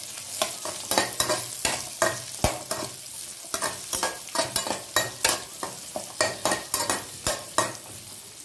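Shallots, curry leaves and dried red chillies sizzling in oil in an aluminium kadai while a metal spatula stirs them, scraping and clinking against the pan about three times a second. The stirring stops shortly before the end, leaving the sizzle.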